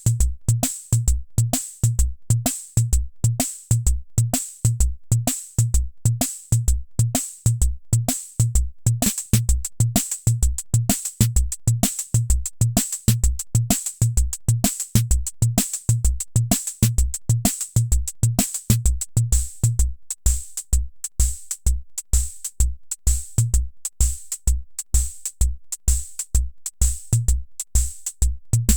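Hammond Auto-Vari 64 analog rhythm machine playing one of its preset beats: a steady, repeating pattern of low bass-drum thumps under crisp hi-hat or cymbal hits.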